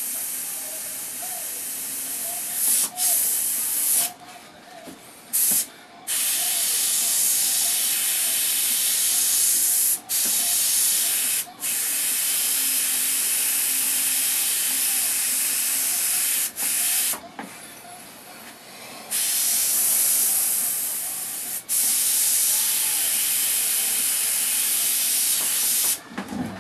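Airbrush spraying paint: a hiss of compressed air that starts and stops sharply as the trigger is pressed and released, in spells of one to several seconds with short breaks between.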